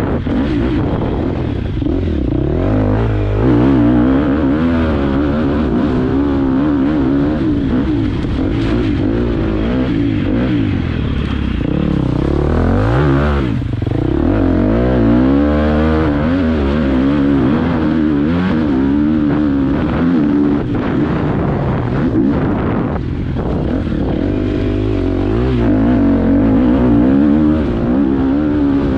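Motocross bike engine heard onboard, revving up and falling back over and over as the rider works the throttle, the pitch rising and dropping every second or two.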